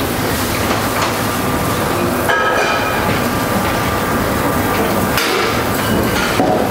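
Steady rushing noise of a busy professional kitchen, loud and even, with a few faint clicks and clinks.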